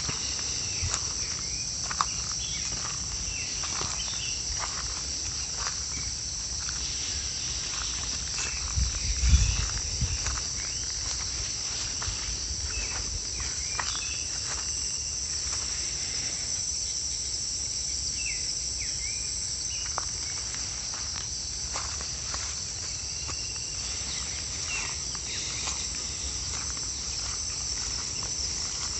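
Steady high-pitched chorus of insects, with footsteps brushing through tall grass. A brief low rumble comes about nine seconds in.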